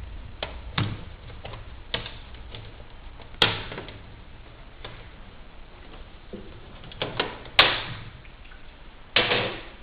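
Plastic screen bezel of a Dell laptop being pried off with a flathead screwdriver: scattered light clicks and scrapes as the clips give, with two sharp snaps about four seconds apart.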